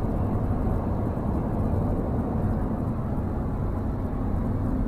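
Steady road and engine noise of a car driving along, with a faint constant low hum.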